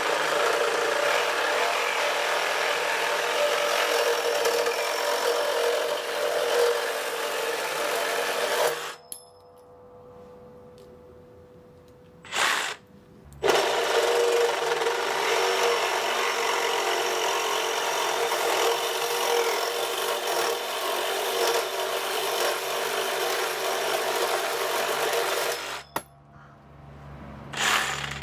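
Makita DJR188 18V brushless cordless reciprocating saw cutting through square metal tubing with a metal-cutting blade: a harsh, rasping sawing noise. It stops about nine seconds in and the motor winds down. After a short burst it saws again for about twelve seconds, stops, and gives one more brief burst near the end.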